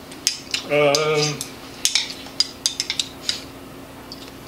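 Chopsticks clicking and tapping against a ceramic rice bowl while eating: a quick run of sharp taps. Near the start there is a short hummed sound from the eater.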